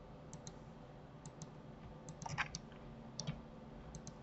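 Scattered clicks of a computer mouse and keyboard, several in quick pairs a fraction of a second apart, with a busier cluster about two seconds in, over a faint steady hum.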